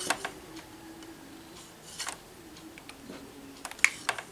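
Small clicks and taps from handling a mini HDMI cable plug and a DSLR camera while lining the plug up with the camera's port: one click at the start, one about two seconds in, and a few together near the end, over a faint steady hum.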